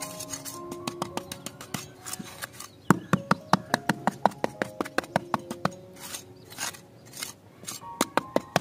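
A small steel mason's trowel patting and scraping loose soil flat, with a quick run of sharp taps, about four or five a second, in the middle and softer scraping near the end. Light background music with a simple melody plays underneath.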